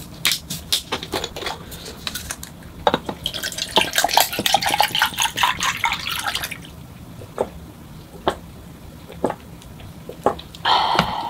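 A drink is poured from a glass bottle into a glass mug over a large ice ball, a few seconds of splashing liquid with sharp clinks of ice against glass. Scattered clicks of the bottle and glass being handled come before and after, and a short swallowing sound comes near the end as she drinks.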